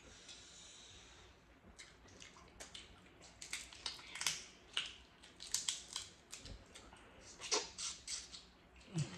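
Crab leg shells being cracked and picked apart by hand: a run of sharp cracks and snaps, sparse at first and coming thick and fast from about a third of the way in.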